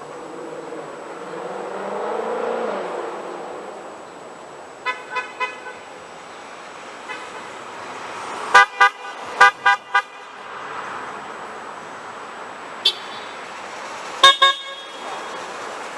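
Car horns honking in short toots from drivers answering a roadside protest sign. A few quick beeps come about five seconds in, a louder run of half a dozen around the middle, then a single toot and a double toot near the end, with street traffic running underneath.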